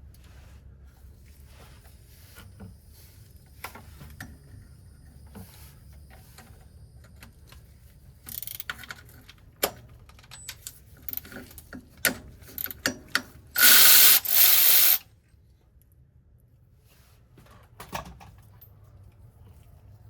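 Hand ratchet and socket clicking while working bolts loose on a car, with scattered clicks and clanks of tools. About two-thirds of the way through comes a loud, fast run of ratcheting lasting about a second and a half.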